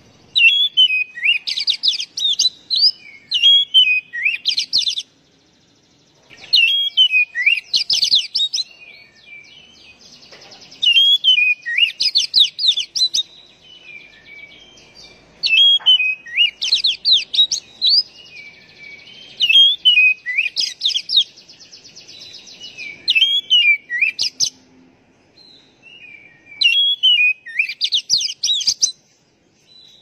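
Oriental magpie-robin (kacer) singing: loud, varied whistled phrases of quick rising and falling notes, in bursts of two to four seconds separated by short pauses, about seven times over.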